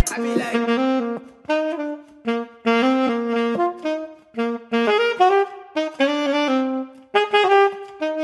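Recorded jazz saxophone playing a solo line in short melodic phrases, each separated by a brief gap, with no drums or bass underneath.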